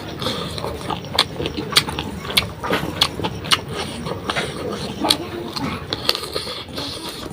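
A person eating and chewing close to the microphone, with a dozen or so irregular sharp mouth clicks and smacks.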